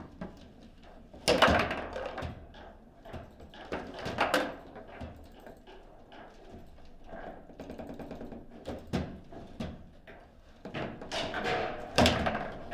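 Table football in play: sharp knocks and clacks of the ball striking the plastic players and table walls and of the rods being slid and jolted. The loudest knocks come about a second and a half in, about four seconds in, and near the end.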